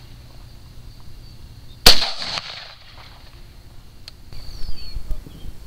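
A single AR-15 rifle shot about two seconds in, a sharp crack with a short echo trailing off. The shot misses the exploding target, so no detonation follows.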